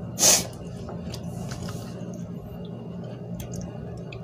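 A man's short, sharp hissing breath about a quarter second in, then a fainter breath, as he reacts to the burn of super-spicy instant noodles. A steady low hum runs underneath.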